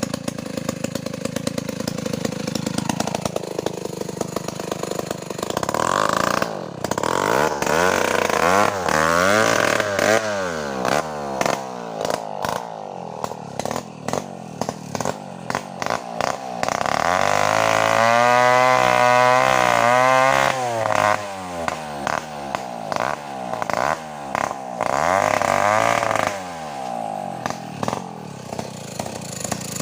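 Two-stroke chainsaw revving up and down over and over, held at high revs for a few seconds about two-thirds of the way through.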